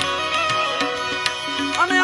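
Harmonium playing a sustained melody with tabla strokes keeping a steady rhythm, an instrumental passage of a Gujarati devotional bhajan.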